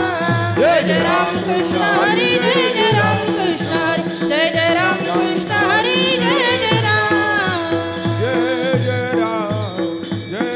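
A woman sings a Marathi devotional abhang in a melismatic line over a steady drone from the long-necked veena she holds. Brass taal hand cymbals clash in rhythm, with a low drum beat.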